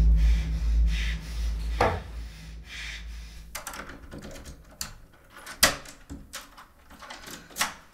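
A deep low boom dies away over the first two seconds. Then come scattered light knocks and clicks, a handful of separate hits, with one sharper knock a little past the middle and another near the end.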